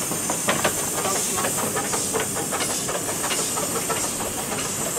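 Small narrow-gauge steam locomotive getting under way, steam hissing out around its cylinders, with a run of short sharp beats several times a second.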